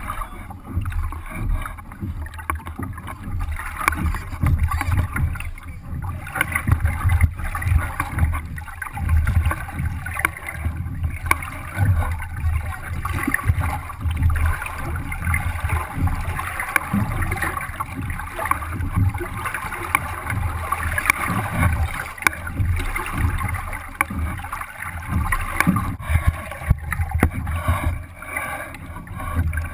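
Water splashing and gurgling along the hull of a Sunfish sailboat under way, with irregular low rumbling throughout.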